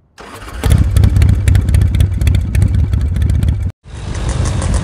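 Motorcycle engine revving loudly in rapid pulses. It cuts off abruptly a little under four seconds in, and after a brief gap music begins.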